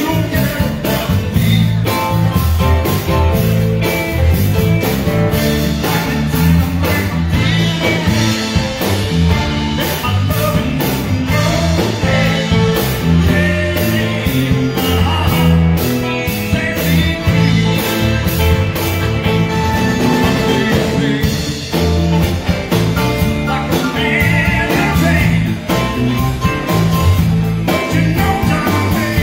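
A rock band playing live: electric guitars and drums, with a man singing at the microphone.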